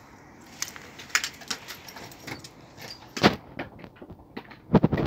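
Keys jangling and clicking as a front-door lock is worked, with a loud clunk about three seconds in and a quick cluster of knocks near the end.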